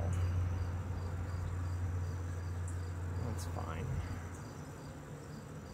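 Honeybees buzzing around an opened hive frame, a steady low hum that fades away about four seconds in. A high, regular chirping, about three a second, runs behind it.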